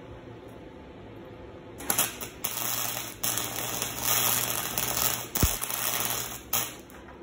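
Wire-feed welder arc crackling in a few short runs, starting about two seconds in and stopping near the end, with brief breaks between runs.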